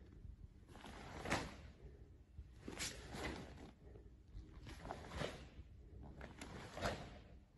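Faint sharp swishes and soft thuds from a karate kata: the cotton gi snapping and bare feet stepping on tatami mats with each technique, about every one and a half to two seconds.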